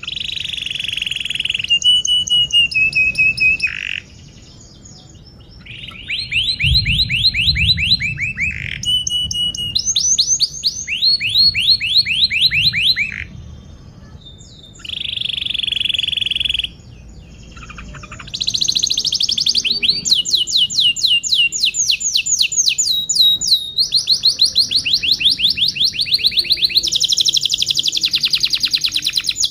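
Domestic canary singing long song phrases: fast rolling trills of rapidly repeated notes alternating with held buzzy notes, broken by a few short pauses.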